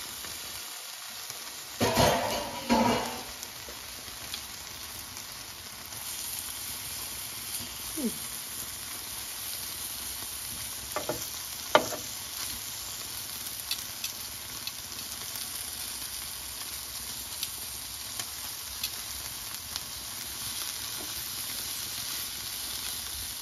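Chicken tikka skewers frying in oil in a large frying pan: a steady sizzling hiss. There is a loud clatter about two seconds in, and a couple of sharp clicks of metal tongs against the pan about twelve seconds in.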